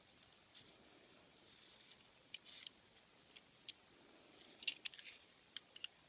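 Faint, scattered clicks and light scrapes of a caliper being slid and set against a padlock's metal body, with a cluster about two and a half seconds in and a busier run of sharp ticks near the end.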